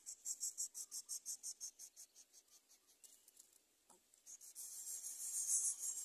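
Greater coucal nestlings begging: a high-pitched, rapidly pulsing buzz that fades through the middle, then swells into a denser, louder buzz near the end as the chicks gape for food.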